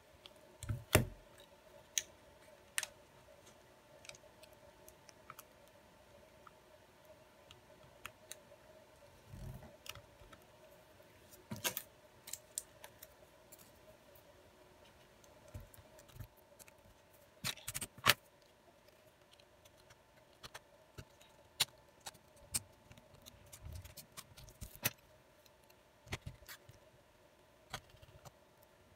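Irregular small clicks and taps of a smartphone's frame, parts and a small screwdriver being handled on a silicone repair mat during a screen replacement. A few sharper clicks stand out, over a faint steady hum.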